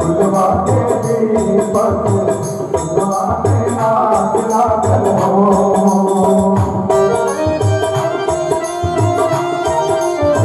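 Instrumental interlude of a devotional bhajan: a tabla beat under a held melody on a keyboard-type instrument. About seven seconds in, the melody takes on a brighter tone.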